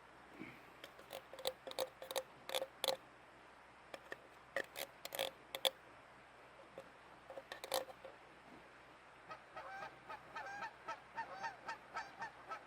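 Geese honking. A few loud, scattered honks come in the first six seconds. From about nine seconds in there is a steady run of quicker, softer calls, two or three a second.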